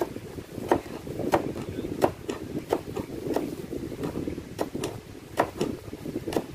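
Carrot being grated with a small handheld plastic grater on a plastic cutting board: a sharp scrape-and-knock with each stroke, roughly every two-thirds of a second, over a steady low rushing noise.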